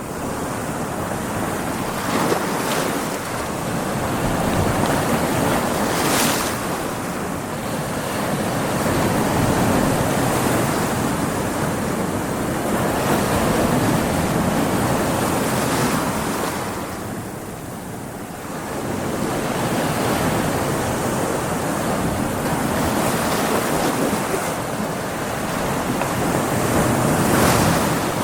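Ocean waves breaking and splashing against rocks: a continuous wash of surf that swells and eases, with a quieter lull about two-thirds of the way through and a few sharper splashes.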